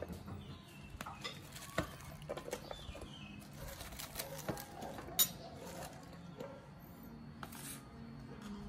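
Sliced cabbage and onion being placed by hand into a cooking pot from a plastic tub: light rustles and soft clicks, with a few sharper taps.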